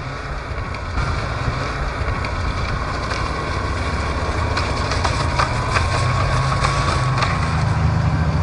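Over-snow vehicle engines running: a steady low rumble with a faint high whine that slowly drops in pitch.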